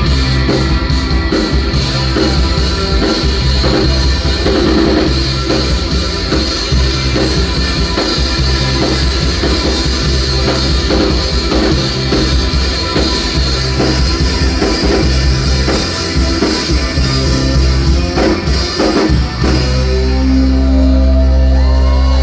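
Live rock band playing an instrumental passage on drum kit, guitar and bass. The steady beat gives way about nineteen seconds in to a held chord left ringing.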